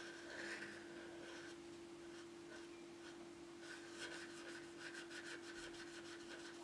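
Faint scratching of a felt-tip marker's tip on the front of a small drawer unit as small circles are drawn; the strokes come quick and close together in the second half. A steady low hum runs underneath.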